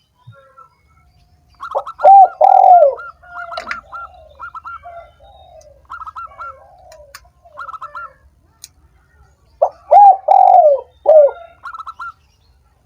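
Spotted dove cooing in two loud bouts, about two seconds in and again near ten seconds, each a short run of falling coo notes. Between the bouts, quicker, higher repeated notes are heard.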